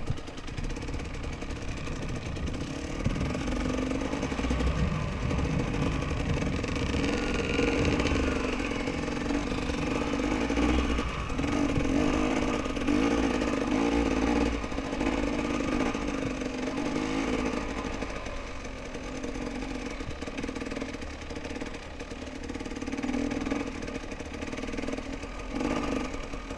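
Dirt bike engine running under throttle while ridden across loose sand, its revs rising and falling repeatedly as the rider opens and eases off the throttle.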